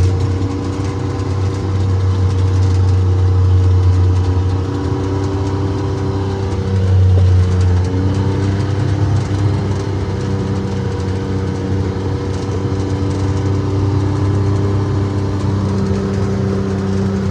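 A vehicle engine running steadily with a deep, continuous hum and small changes in pitch.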